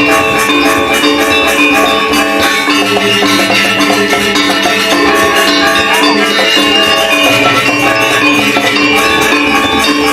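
Balinese gamelan ensemble playing a tabuh kreasi piece: bronze metallophones ringing in fast interlocking strokes over drums, loud and continuous.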